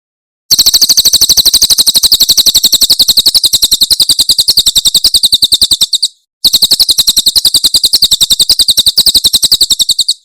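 Cililin bird singing its rapid-fire 'tembakan' song: a high trill of about fifteen notes a second, in two long runs with a short break about six seconds in.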